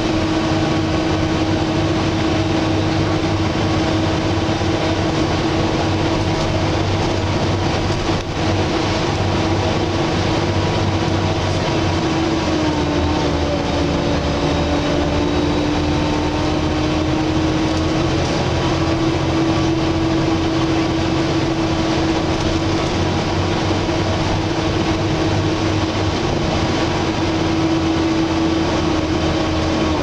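Volvo B7TL double-decker bus's engine cooling fan whining loudly (the 'hoover' sound) over the engine and road noise while the bus is moving. The whine holds a steady pitch, sagging a little about twelve seconds in and climbing back a few seconds later.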